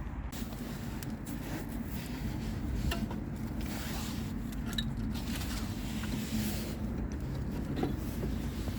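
Faint scraping, rubbing and small clicks of brake pads and caliper parts being handled and pulled out of a disc brake caliper, over a steady low background hum.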